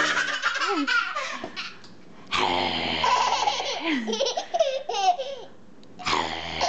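Toddler laughing hysterically in three bouts, each set off by an adult's short, rough growl.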